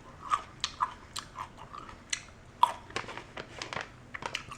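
A person chewing pickled green beans close to the microphone, a quick run of crisp, wet crunches several times a second.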